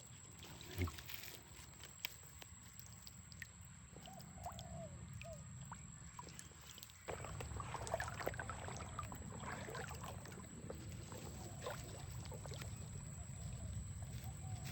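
River water sloshing and trickling with small splashes and knocks; it gets louder and busier about seven seconds in.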